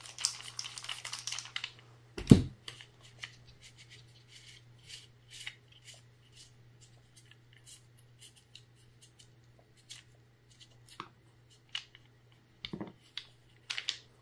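Hands taking apart a donor FSC/TCP CO2 pistol magazine: a crinkling rustle for the first two seconds, a sharp knock about two seconds in, then scattered small clicks of plastic and metal parts, with another knock near the end.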